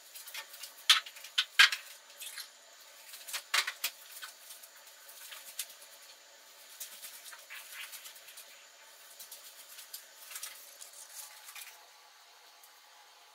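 Kitchen handling sounds at a counter: a few sharp clicks and knocks in the first few seconds, then fainter scattered small clicks.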